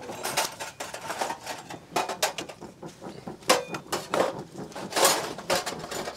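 Metal ladle, cooking pot and bowls clinking and knocking irregularly as beef stew is stirred and dished out, one strike ringing briefly about three and a half seconds in.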